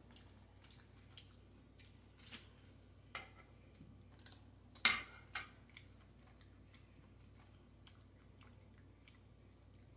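A person chewing a mouthful of taco salad with tortilla chips, close to the microphone: scattered crunches and mouth clicks, the loudest pair about five seconds in.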